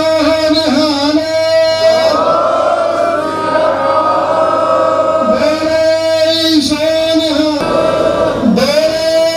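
Sikh devotional singing (kirtan) in long held notes. The melody moves up to a higher phrase about two seconds in and returns to the lower held notes about five seconds in.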